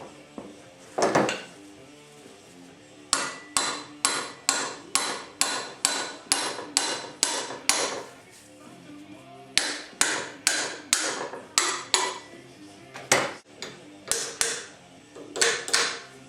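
Hammer tapping repeatedly while the rebuilt hydraulic cylinder is reassembled, sharp blows at about two a second, in runs with short pauses between them.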